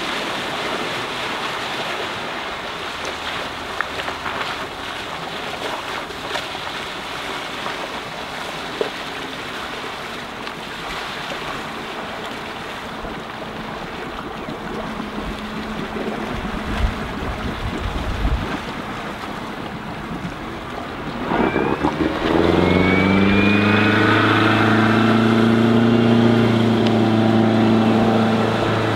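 MerCruiser 3.0-litre 135 hp sterndrive engine of a Bayliner 192 Classic Cuddy, faint under wind and water noise at first. About 22 seconds in it opens up loudly, rising in pitch and then holding steady as the boat accelerates.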